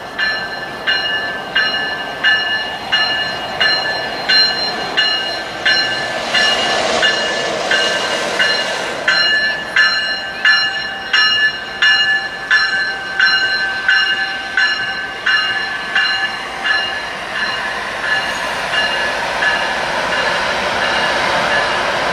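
Railroad grade-crossing bell ringing steadily, about one and a half strikes a second, as a Metrolink bilevel commuter train passes. The strikes fade over the last few seconds while the rumble of the passing coaches grows.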